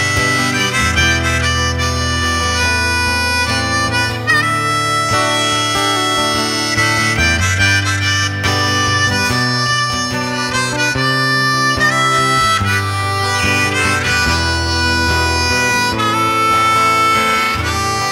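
Harmonica solo, played cupped in the hands against a microphone, with held notes, over a strummed acoustic guitar.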